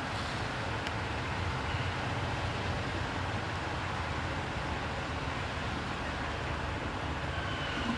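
Steady outdoor background noise, a low rumble with a hiss over it and no distinct event, with one faint click about a second in.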